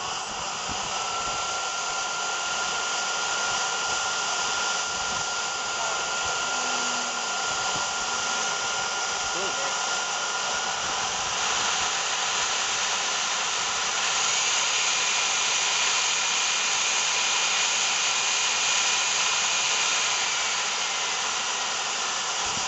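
Model jet turbine engine running on the ground: a steady rushing blast with a thin whine on top. About halfway through the whine climbs in pitch as the turbine spools up past 100,000 rpm. It holds high, then begins to drop near the end.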